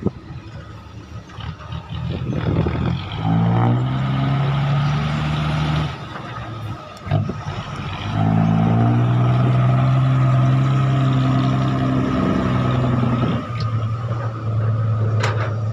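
Loaded ten-wheel dump truck diesel engine pulling away, revving up through the gears: the engine note climbs about three seconds in, drops at a gear change near six seconds, climbs again and holds, then eases off near the end.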